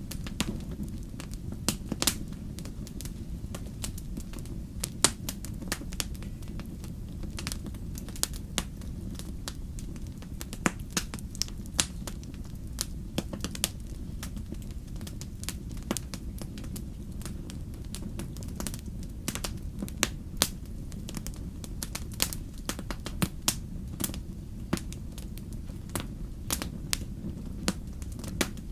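Wood campfire burning: irregular sharp crackles and pops, some louder than others, over a steady low rumble of the flames.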